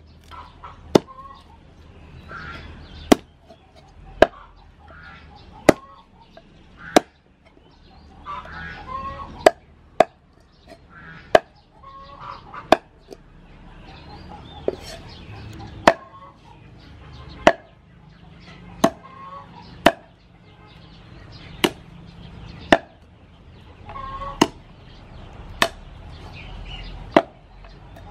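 Cleaver chopping raw chicken on a round wooden chopping block, one sharp chop about every second and a half at a steady pace.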